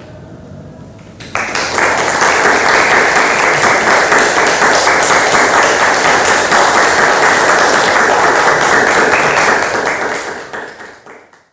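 Audience applause: many people clapping together, starting suddenly about a second in, holding steady, and fading out near the end.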